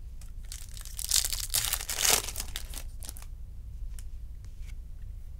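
Trading cards and their plastic packaging being handled: a run of crinkling and rasping, busiest from about one to three seconds in, then a few light clicks.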